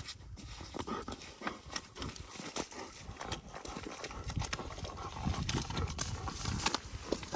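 Belgian Malinois digging and pawing in wet mud, an irregular run of squelching, slapping knocks from its paws and snout.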